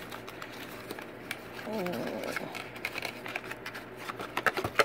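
Small paperboard carton being opened by hand: scattered light clicks and rustles as the flaps are worked open, with a quick run of sharper clicks near the end.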